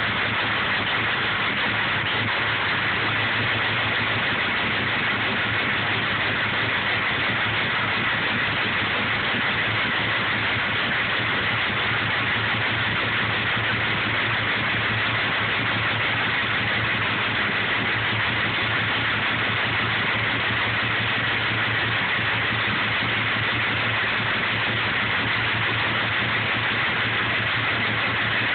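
A 6.0 engine idling steadily shortly after a cold start, with a constant hiss and a faint high steady tone over the engine hum.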